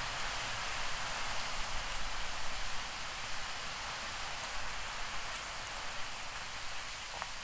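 Steady rain falling, an even hiss with a couple of faint ticks near the end.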